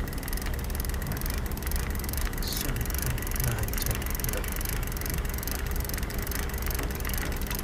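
Fishing reel being wound steadily to bring the line up from the bottom, with a regular ticking of about three clicks a second, over a steady low rumble.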